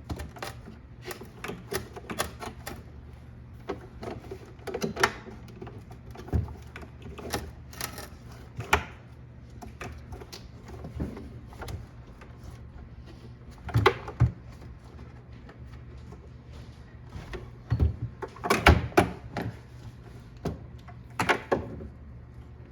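Irregular clicks, taps and knocks of hard parts being handled and worked on, in uneven clusters with a few louder knocks, over a steady low hum.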